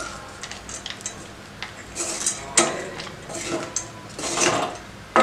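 A wooden spatula stirring poha and roasted peanuts in a stainless steel pan: irregular clicks and knocks of wood on steel, with a few longer scrapes along the pan.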